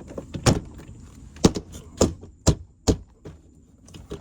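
A hand smacking a BMW F10 door trim panel to seat its plastic clips into the door: five sharp thumps at uneven intervals in the first three seconds.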